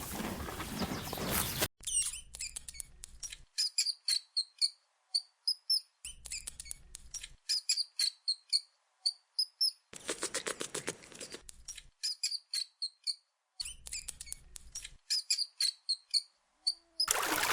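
Many short, high-pitched chirps or squeaks from a small animal, coming in quick clusters. The chirps are broken by abrupt cuts to dead silence. A different, noisier sound cuts off about two seconds in.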